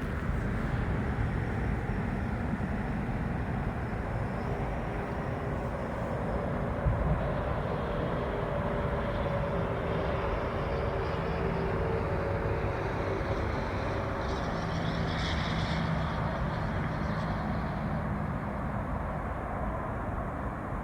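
Steady outdoor rumble and hiss with a faint hum of distant traffic that swells in the middle and fades again.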